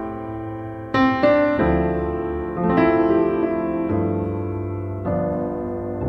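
Background piano music: slow chords struck about once a second and left to ring.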